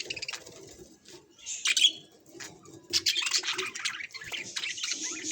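Budgerigars chirping and chattering: a short burst of calls about a second and a half in, then busier, continuous chatter from about three seconds on.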